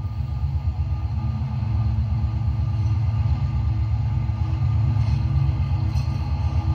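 HO scale model Rio Grande diesel locomotives running on the layout's track with a steady low rumble.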